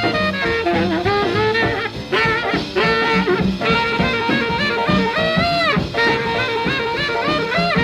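1947 swing-jazz recording played from a 78 rpm record: an alto saxophone lead with bending, sliding phrases over the band, which repeats a held riff note.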